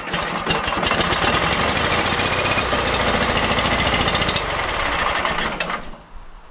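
Kohler KT17 twin-cylinder engine of a garden tractor running on a freshly fitted replacement carburetor, firing in a rapid even pulse, then dying abruptly about six seconds in. It stalls just after the choke is turned off; the owner thinks it was already about to die, or had used up the last fuel in the carburetor.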